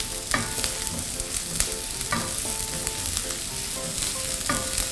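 Chopped garlic and spring onion sizzling in hot vegetable and sesame oil in a pan while being stirred, with a few scrapes and clicks of the utensil against the pan. The aromatics are being fried until fragrant, not yet browned.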